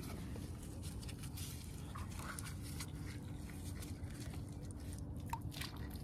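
Faint scrapes and crunches of bare feet and a paddle board being handled on a stony, grassy river edge, over a low steady rumble.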